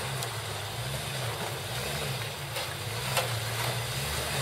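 Jeep Cherokee's engine running at low revs as it crawls forward, its pitch rising and falling a little. A few sharp clicks sound over the engine, the loudest about three seconds in.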